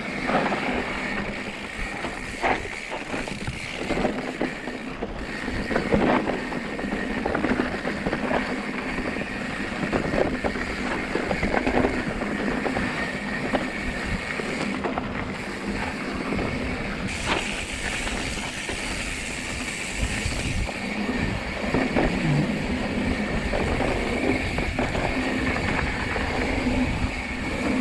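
Mountain bike riding over a rough trail: steady tyre and rolling noise with frequent knocks and rattles from the bike.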